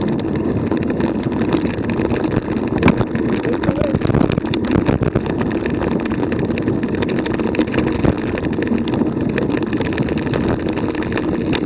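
Steady rush of wind on the microphone at about 28 km/h, mixed with the rattle and crunch of wheels rolling over a bumpy dirt trail.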